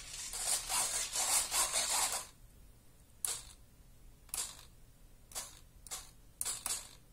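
Rustling noise for about two seconds, then a handful of short, separate mechanical whirrs or scrapes about a second apart.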